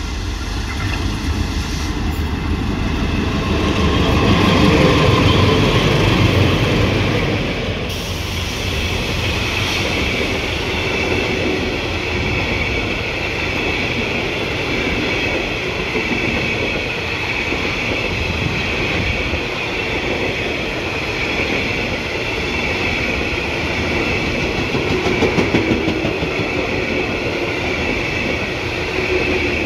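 Train passing close by, with its wheels clicking over the rail joints. It is loudest around five seconds in. From about eight seconds in a steady high-pitched tone rides over the rolling noise.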